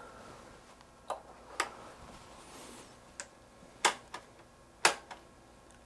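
About seven sharp clicks at irregular spacing, from pressing the HP 3465A multimeter's front-panel pushbutton switches and handling its test leads. The two loudest come about four and five seconds in.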